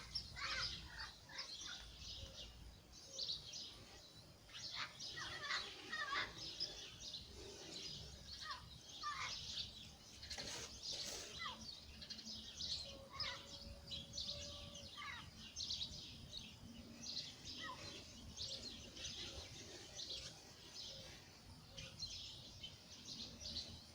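Birds chirping and calling over faint outdoor ambience, many short high chirps and quick whistled notes.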